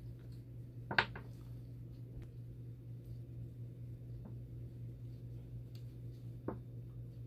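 Small plastic parts and pliers being handled on a workbench: one sharp click about a second in, a softer click near the end and a few faint ticks, over a steady low hum.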